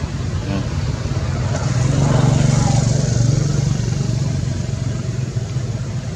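Motor vehicle engine running, a steady low hum that swells louder for a second or so about two seconds in, as a vehicle passing close by.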